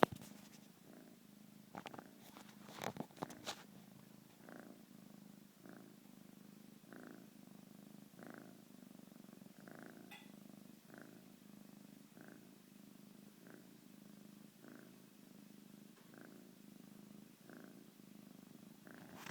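A sleeping pet snoring softly, one even snore about every second and a quarter. A few sharp clicks or knocks, the loudest sounds here, come in the first few seconds.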